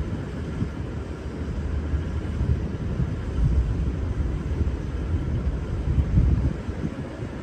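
Low rumble of a V/Line VLocity diesel multiple unit's engines as the train pulls out, with no horn sounding.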